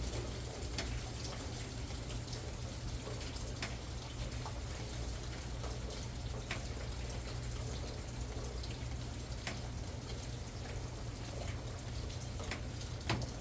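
Light rain falling with a steady hiss and low rumble, and single raindrops tapping sharply about once a second, one louder tap near the end.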